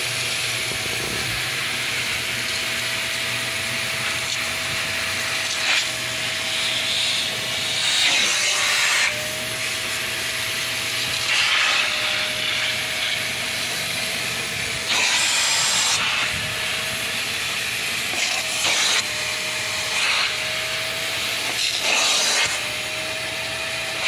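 Hart 6-gallon, 5.5 peak horsepower wet/dry vac running with a steady whine, its water extractor nozzle sucking shampoo water out of soaked carpet. Every few seconds the suction surges into a louder hissing rush as the nozzle is stroked across the wet carpet.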